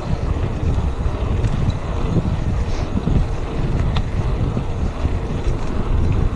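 Wind buffeting the microphone of a camera on a moving bicycle: an uneven low rumble.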